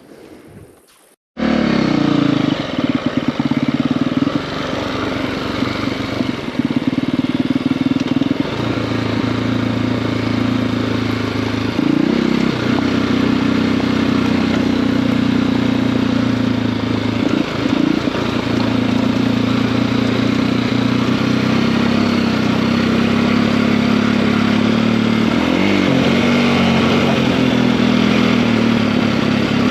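Single-cylinder four-stroke engine of a KTM EXC-F enduro motorcycle with a 280 big-bore kit, running under way while being ridden. It comes in suddenly about a second in over faint outdoor quiet, then holds a steady note with brief dips in pitch about 12, 18 and 26 seconds in.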